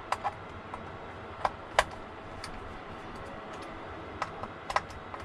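Scattered light clicks and taps, about six in all, from small RC car parts being handled during the fan installation; the sharpest comes a little under two seconds in.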